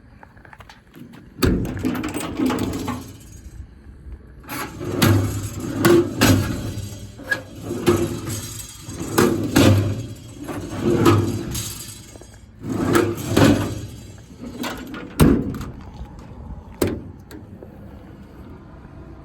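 Metal doors and slide-out parts of a truck's service body being handled, with repeated clanks, bangs and rattles in several clusters and a couple of single loud bangs near the end.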